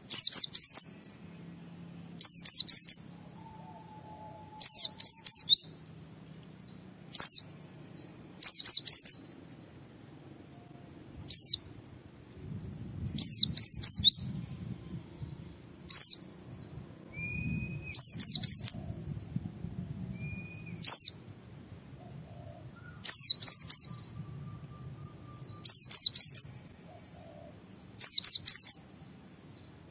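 Pleci (white-eye) singing in short bursts of rapid, high, falling chirps, repeated about every two seconds.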